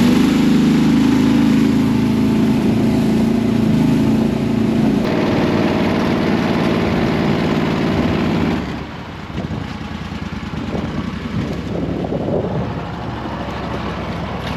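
Boat motor running with a steady drone that drops in level and changes tone about nine seconds in, as the throttle eases off.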